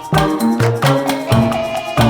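Upbeat background music with a bouncy rhythm of sharp, wood-block-like percussion hits over bass and melody notes.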